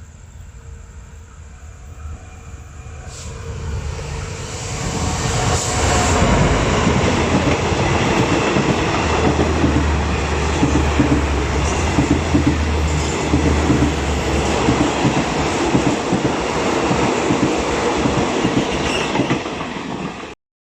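A passenger train passing through a station, growing louder over the first few seconds and then running by steadily with its wheels clattering rhythmically over the rail joints. The sound cuts off suddenly near the end.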